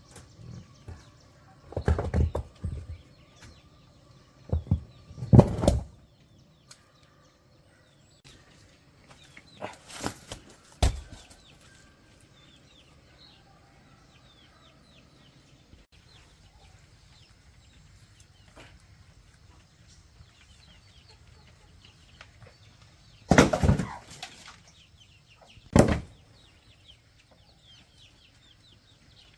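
Chickens clucking, with a handful of loud, short, noisy bursts, the loudest about two, five, ten, twenty-three and twenty-six seconds in.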